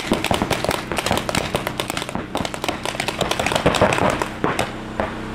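Paintball markers firing many shots in fast succession, a rapid crackle that thins out near the end.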